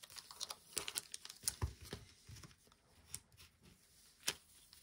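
Light rustling and crinkling of trading-card packaging being handled, with scattered small clicks and taps, busiest in the first two seconds and then only a few isolated taps.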